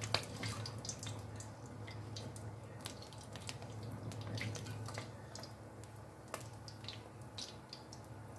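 Whole spices (bay leaves, cinnamon, cardamom pods, cloves) crackling in hot oil as a silicone spatula stirs them around a pot. There are scattered small sharp pops, a few each second, over a low steady hum.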